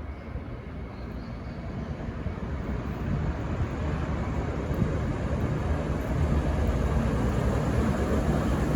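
V/Line VLocity diesel multiple unit approaching, its engine and wheel rumble growing steadily louder.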